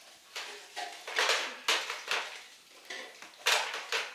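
Plastic cups clattering as they are set down and stacked into pyramid targets on a hard floor: several short, light clacks with gaps between.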